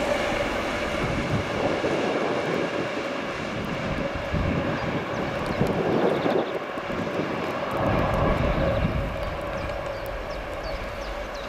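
A DB class 232 'Ludmilla' diesel locomotive running light, its 16-cylinder Kolomna diesel engine giving a steady droning hum with a held whine, slowly fading as the locomotive draws away.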